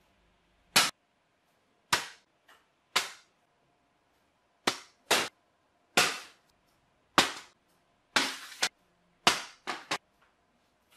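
About a dozen sharp taps and smacks at irregular intervals, one slightly longer scraping one near the end. A folded paper aeroplane is being thrown and is striking hard surfaces and being picked up.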